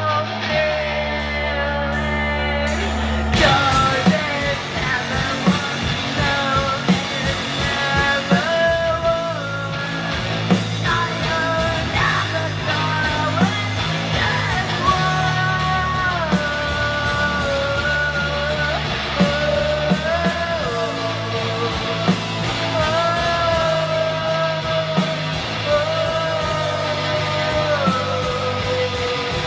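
Garage punk band playing live: a woman singing over electric guitar and drums. After a few seconds of held low notes, the drums come in hard with a crash about three seconds in and keep up a fast, even beat.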